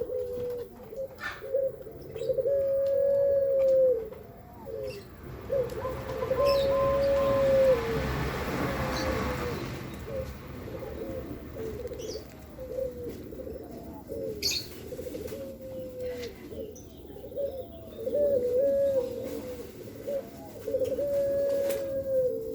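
Puter doves (domestic ringneck doves) cooing over and over, including long drawn-out coos about a second each, with several birds overlapping. Small chirps from other birds come through, and a rushing noise swells up and fades away in the middle.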